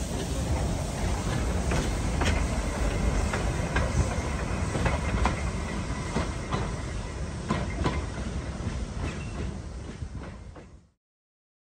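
Narrow-gauge steam train carriages rolling past on the track: a steady low rumble with wheels clicking over the rail joints. The sound cuts off suddenly near the end.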